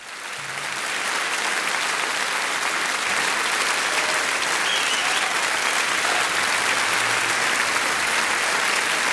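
Large audience applauding, the clapping swelling up over the first second and then holding steady.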